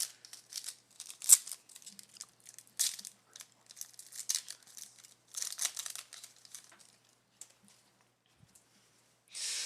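Foil wrapper of a football trading card pack crinkling and being torn open while the cards are handled. It is a run of short crackling rustles, the loudest about a second in, that stops about seven seconds in.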